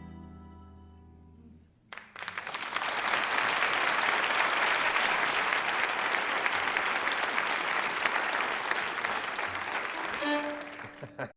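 A held music chord fades out, then about two seconds in a crowd breaks into applause, which goes on steadily and cuts off abruptly at the end.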